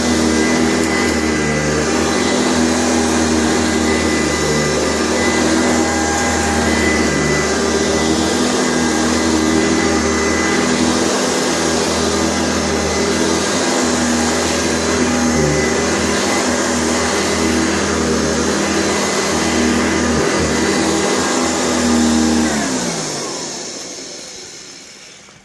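Sanitaire SC684 upright vacuum cleaner running steadily, then switched off about 22 seconds in, its motor winding down with falling pitch and fading out.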